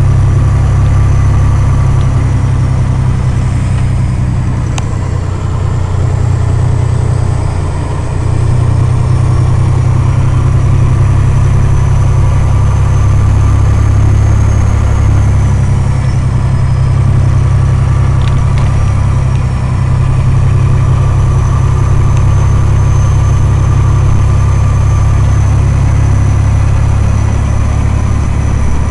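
Log truck's diesel engine pulling steadily, heard from inside the cab as a loud low drone, with a thin high whine drifting slowly in pitch above it. The drone briefly drops in level about eight seconds in.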